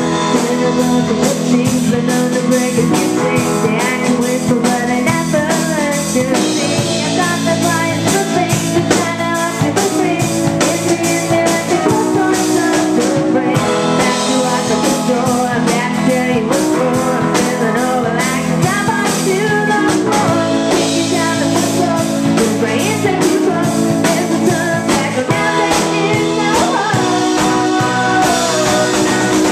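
Live band playing a song: a woman singing lead over electric guitar, keyboard, bass and a drum kit.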